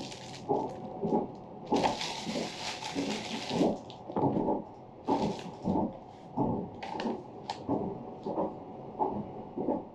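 Inside a moving Saphir Odoriko train car: the wheels clatter on the track in a steady rhythm of about two knocks a second, and a paper bag rustles for about two seconds near the start.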